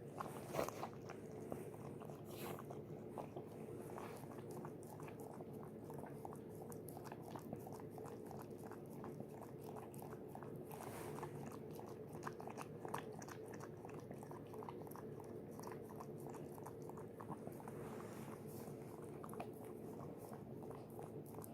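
Mother dog licking and chewing: a steady stream of small wet clicks, one louder about half a second in, over a steady low hum.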